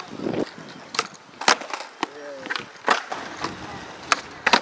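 Skateboard on a smooth concrete skatepark floor during flatground tricks: a series of sharp pops and clacks as the board's tail snaps and the deck and wheels land, about seven in all, the loudest about a second and a half in, over the rumble of wheels rolling on concrete.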